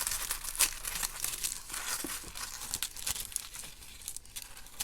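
Tissue paper rustling and crinkling as it is unfolded by hand, busier in the first couple of seconds and thinning out toward the end.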